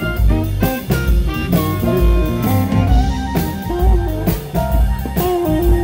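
Live electric blues band playing: amplified harmonica wailing held, bending notes over drum kit, electric bass and electric guitar, with a steady drum beat.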